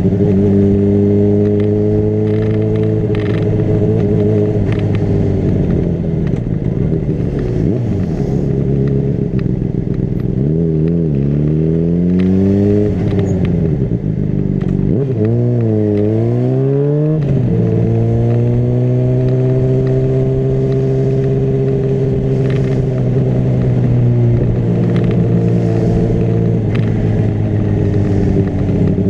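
Honda CBR600RR inline-four engine running under riding, mostly held at steady revs. In the middle the revs fall and climb several times in quick succession before settling into a steady note again.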